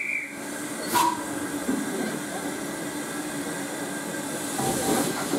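LMS Ivatt class 2MT tank engine no. 41312 hissing steam steadily over a low hum, with a single sharp knock about a second in and the hiss growing louder near the end.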